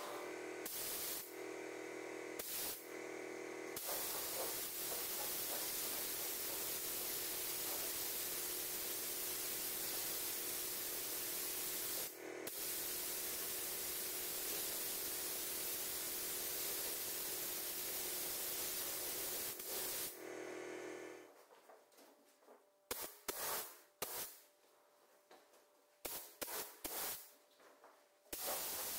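Compressed-air paint spray gun hissing steadily as clear coat is sprayed onto a car door, with a few brief breaks where the trigger is let go. Near the end the hiss gives way to short separate spurts with near silence between them.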